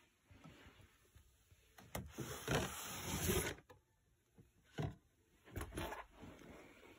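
A cat nosing and pawing into a cardboard box of trash bags, so that the box rustles and scrapes against the carpet in bursts. The longest burst comes about two seconds in and lasts nearly two seconds, and shorter ones follow near five and six seconds.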